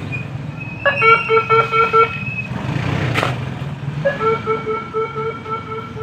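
A vehicle horn tooting in two runs of quick, evenly spaced beeps, about six and then about eight, over a steady motor hum. A single shovel scrape into gravel comes about three seconds in.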